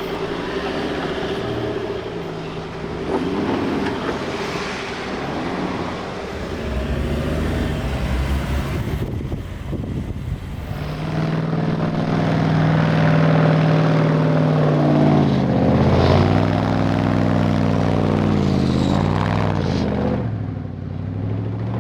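Off-road 4x4 vehicle engine running, with a steady note from about halfway through and then revving up and down several times near the end.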